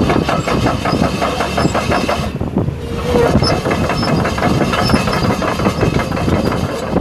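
Isuzu 6BG1T six-cylinder turbo diesel of a JCB JS220LC excavator idling steadily, with an even, rapid clatter.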